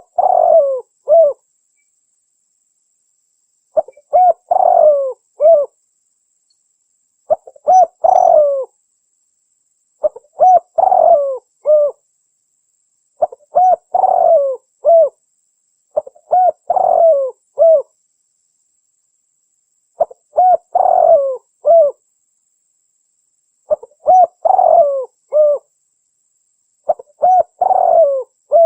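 Spotted dove cooing: a phrase of several coos closing on a separate final coo, repeated about every three and a half seconds with dead silence between phrases.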